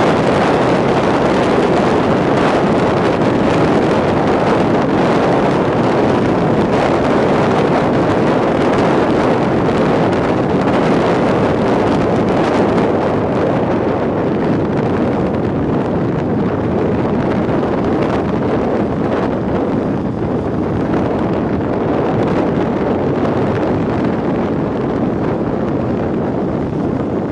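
Wind rushing over the microphone of a camera on a motorcycle moving at road speed, a steady loud rush mixed with road and engine noise. It eases slightly after about halfway as the bike slows.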